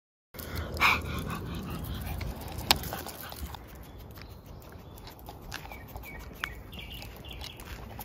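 Small white dog on a leash barks once, short and loud, about a second in, followed by a sharp click near three seconds and softer walking and rustling noises, with a few faint high yips later.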